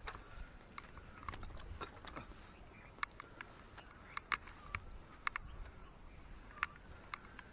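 Footsteps through dry grass and twigs on a hill path: scattered sharp clicks and crackles at an irregular pace, over a low rumble of wind and handling on the microphone.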